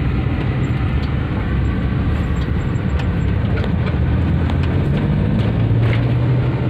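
Car driving, heard from inside the cabin: steady engine hum and road rumble, with the hum getting stronger about five seconds in.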